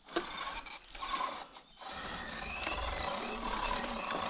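Sur-Ron electric dirt bike's motor and drivetrain whirring under throttle while climbing, with tyre noise over dry leaves and roots on a dirt trail. The sound dips briefly twice in the first two seconds, then runs steadily.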